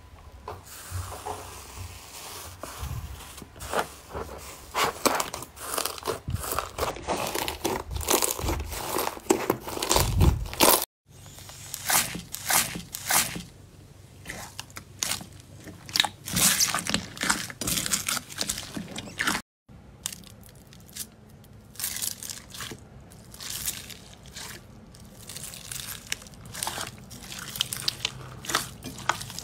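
Slime being poked, pressed and squeezed by hand, making dense, irregular crackling and crunching clicks. Three clips are joined, and the sound breaks off abruptly twice where they cut.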